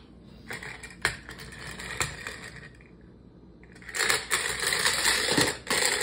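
Wind-up Decoy Detonator toy's clockwork mechanism rattling as it runs across a tile floor, loud for the last two seconds after a few scattered clicks.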